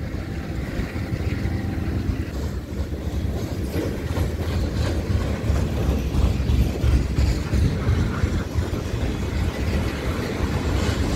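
Freight train rolling past, its loaded cars rumbling steadily on the rails, with scattered clicks of wheels over rail joints.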